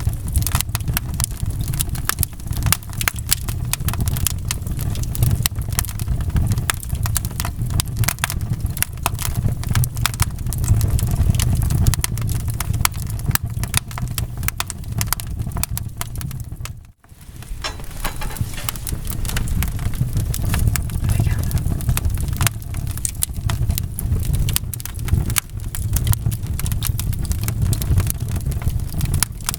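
Wood fire in a fireplace crackling and popping over a low, steady rumble of the flames. The sound dips away briefly about two-thirds of the way through, then comes straight back.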